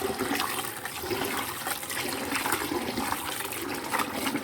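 Water splashing and sloshing as rice is washed in water.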